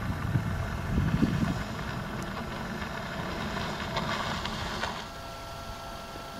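Wind buffeting the microphone in a low rumble that eases off after the first couple of seconds, with water sloshing as an African elephant wades and drinks in a waterhole; a short spell of splashing about three and a half to five seconds in, then everything drops to a faint steady hum.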